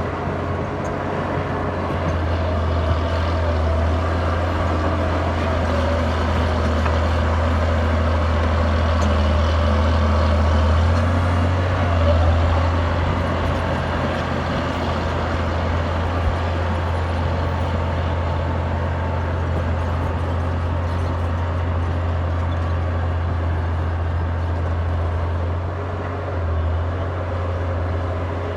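Caterpillar D6D crawler dozer's diesel engine working under load while breaking out shale and clay, a steady deep drone that pulls harder about two seconds in and again around eleven to twelve seconds, and eases briefly near the end.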